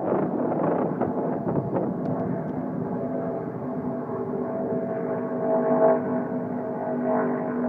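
ARCA stock car's V8 engine running at speed around the superspeedway, heard from a distance as a steady drone that swells to its loudest about six seconds in. Wind buffets the microphone in the first second or two.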